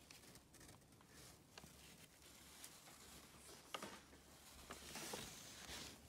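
Faint handling noise: light rustling with a few small clicks, one sharp tick about four seconds in and a louder rustle near the end.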